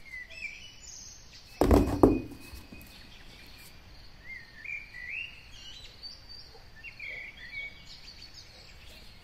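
Small birds chirping in the background in short repeated calls. About two seconds in comes a loud knock and rustle from plastic toys being handled in a cardboard box.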